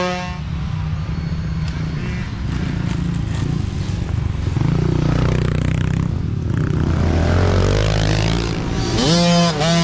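Mini dirt bike engine running at riding throttle on a dirt track. Its revs dip and climb again about five seconds in, then rise sharply near the end as the throttle is opened.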